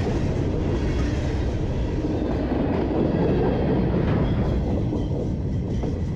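Empty open-top rock hopper cars of a freight train rolling past at trackside, steel wheels rumbling and clacking over the rail. The last car goes by near the end and the noise starts to ease.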